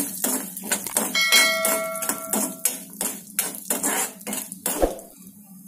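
A steel ladle scraping and knocking against a wok as cashews and charoli are stirred in ghee, several strokes a second. About a second in, a metallic ringing tone sounds for over a second.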